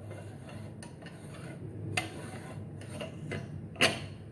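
Moka pot being screwed shut and handled: a few light, sharp metal clicks and taps of its parts, the loudest near the end.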